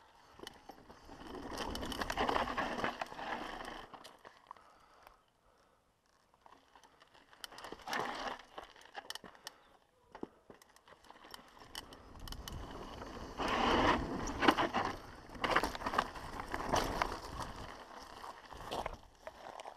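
Mountain bike riding fast down a dry dirt trail: tyres crunching and scraping over dirt, gravel and leaf litter, with the bike rattling and clattering over bumps. It comes in rough surges with quieter coasting stretches between, busiest in the second half.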